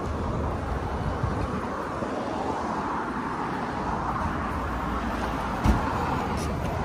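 Steady road traffic noise with passing vehicles, and a single short thump about five and a half seconds in.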